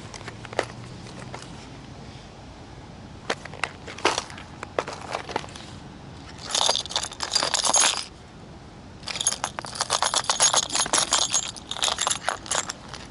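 Metal spoon lures clinking and jangling against each other as they are rummaged through. A few scattered clicks come first, then two spells of rapid jingling, the second the longer, in the second half.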